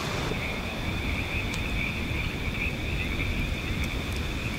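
A steady, high-pitched night chorus of calling animals, heard as a continuous shrill trill, with a few faint crackles from a small wood campfire.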